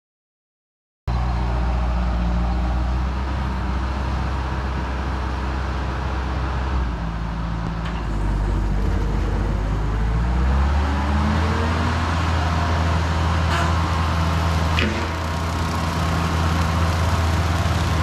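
Bobcat skid steer's diesel engine running steadily under load while working a brush cutter through grass, starting about a second in. Its engine note dips and climbs back about halfway through, with a few faint sharp knocks later on.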